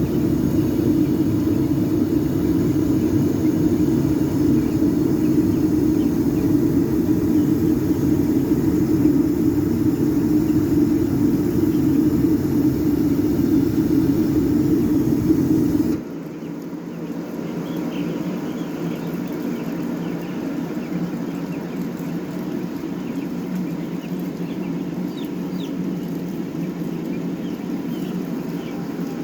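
Young chickens in a poultry brooding house peeping, many short high chirps over a steady background drone. The drone is loud and low for the first half, then after an abrupt cut about halfway it drops to a quieter level where the chirps stand out.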